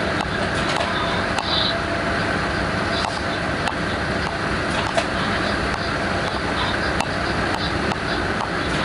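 Class 186 electric locomotive running along the line: a steady rumble of wheels on rail with a few sharp clicks scattered through it.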